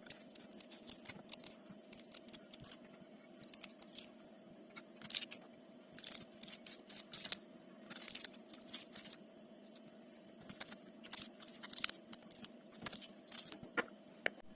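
Black radish being cut and scraped with a knife: irregular short scrapes, crunches and clicks of the blade in the root, over a faint steady hum.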